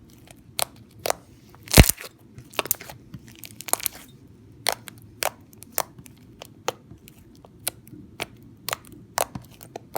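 Basic glue slime being squeezed and stretched by hand for ASMR, giving irregular sharp clicks and pops, one or two a second, the loudest about two seconds in.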